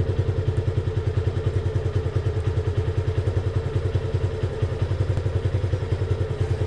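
Motorcycle engine idling with a steady, even thumping of about six beats a second.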